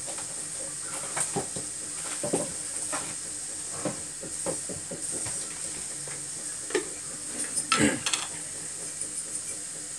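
Steady hiss from a gas stove burner heating a pot of water, with a few light knocks and clinks scattered through, the loudest cluster near the end.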